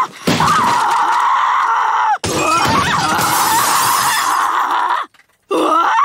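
A woman screaming in long, shrill stretches over the crash of wooden chairs being smashed and window glass shattering. The screaming breaks off briefly about two seconds in and again near five seconds.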